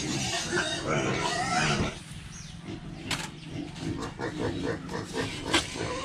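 Pigs squealing and grunting at feeding time, with high sliding squeals in the first two seconds and then a run of short grunts. A couple of short clatters are heard in between.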